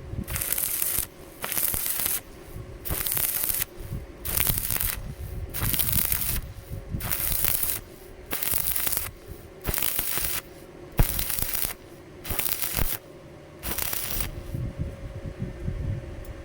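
Stick (shielded metal arc) welding at 95 amps in short spot welds: the arc crackles and hisses in about eleven bursts of under a second each, one roughly every 1.4 seconds, stopping near the end.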